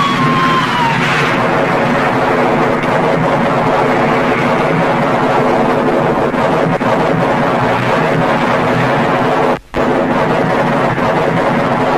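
Film battle soundtrack: a descending whistle that fades out about a second in, then a dense, continuous din of battle noise, broken by a brief dropout near the end.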